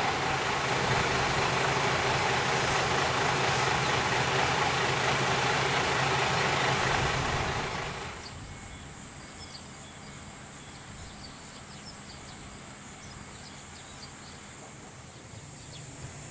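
A large engine runs steadily for the first seven or eight seconds, then cuts off abruptly at an edit. What follows is a much quieter outdoor ambience with faint high ticks and a steady high whine.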